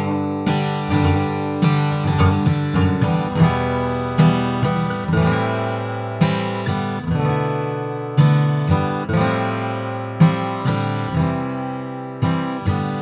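Martin D-18 dreadnought acoustic guitar with mahogany back and sides, played solo: a run of picked chords and notes, each with a sharp attack that rings out and fades, with a full bass.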